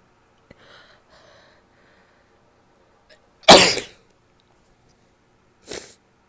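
A person sneezing: faint, breathy inhales build up, then one loud sneeze about three and a half seconds in, followed near the end by a shorter, much quieter second burst.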